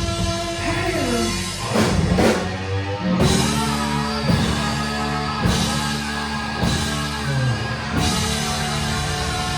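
Live rock band: electric guitar notes with a falling slide near the start, then loud drum hits about two seconds in as the full band comes in on a heavy riff with steady drum strikes.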